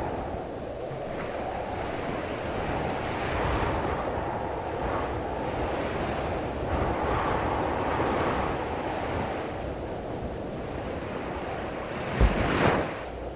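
Ocean surf breaking and washing on a beach, swelling and easing every few seconds, with wind on the microphone. A brief loud burst of noise comes near the end.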